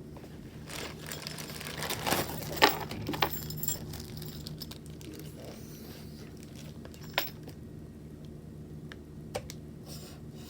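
A tripod being handled during unboxing: clicks and rattles of its parts with some rustling, clustered about one to four seconds in, then a single sharp click near the middle and a few light clicks near the end, over a steady low hum.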